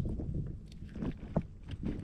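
Handling noise: a few light clicks and taps as hands work a snagged kabura lure loose from a landing net, over a low wind rumble on the microphone.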